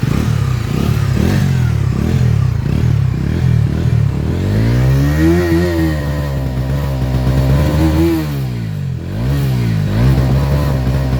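Bajaj Dominar 250's single-cylinder engine revved through its exhaust. A quick run of short throttle blips comes first, then two long revs that climb and fall back, and a short blip near the end before it settles.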